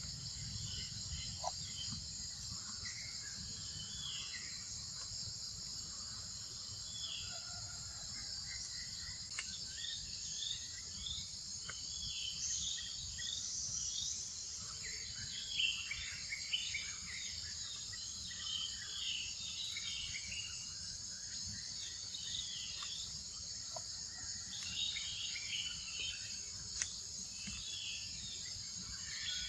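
Steady, high-pitched insect chorus, with many short chirps scattered through it that come more often in the second half.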